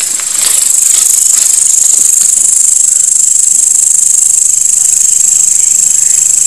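Night insect chorus: a loud, steady, high-pitched trill of crickets with a fast, even pulse. In the first two seconds a few crackles of dry leaves and brush rustling.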